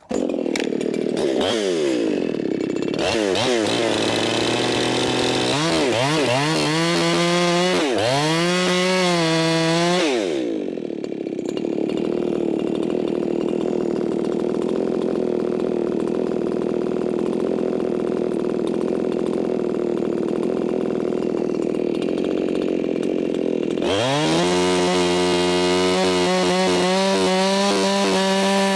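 Modified Echo 4910 two-stroke chainsaw being revved in a series of short rising-and-falling blips for about ten seconds, then running steadily at a lower pitch for about thirteen seconds, before climbing to a higher steady pitch near the end. The saw is being tuned in the cut and has just been set rich, which slows it down.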